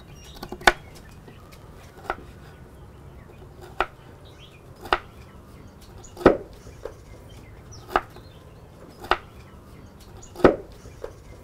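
Kitchen knife dicing bundled carrot strips on a wooden cutting board: single chops knock on the board at an unhurried pace of about one a second.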